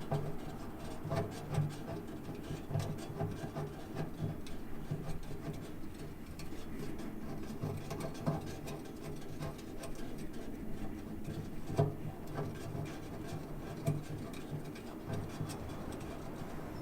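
A hydraulic filter being worked into the excavator's hydraulic tank and turned by hand: irregular rubbing and scraping with small metallic clicks and handling knocks.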